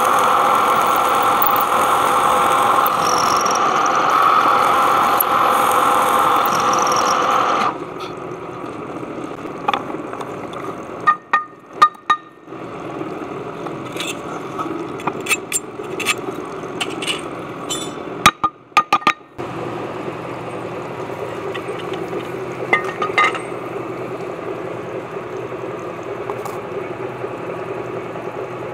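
Vertical milling machine's end mill cutting a slot in a metal shaft: a loud steady cutting noise that stops about eight seconds in. The machine then runs on more quietly, with scattered metal clinks and a few sharp knocks.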